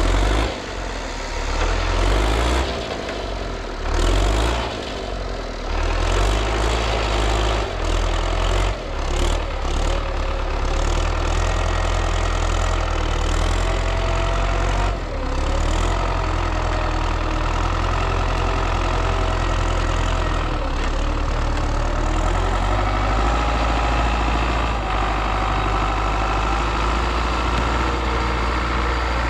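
MTZ-82 tractor's diesel engine running. It is uneven, with knocks and clanks, for the first ten seconds or so, then settles into steady running.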